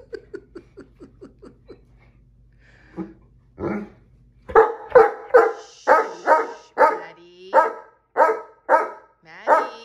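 Great Dane barking at a cat, about two loud barks a second through the second half, after a quick run of soft, short huffs in the first couple of seconds.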